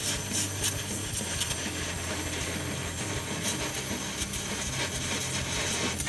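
Electric arc welding on a car's broken exhaust pipe: a steady crackling hiss from the arc, with a low hum underneath.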